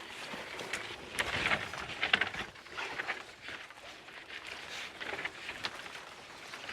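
Undergrowth being cleared: irregular rustling and crackling of shoots and brambles, with scattered sharp snaps, busiest about a second or two in.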